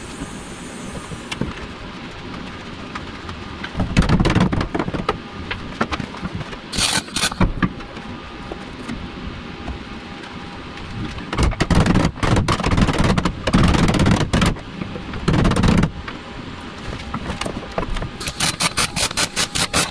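Welder laying tacks and short welds on a sheet-steel firewall panel: bursts of crackling arc noise, several short ones and a longer run of a few seconds in the middle, ending in a quick string of short tacks.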